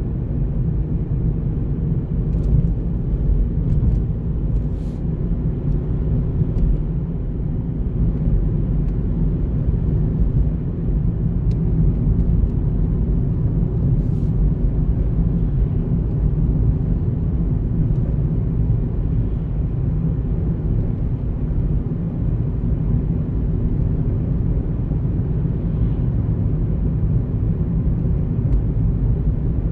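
Steady low rumble of a car driving along a paved road: tyre and engine noise heard from inside the car, with a few faint clicks.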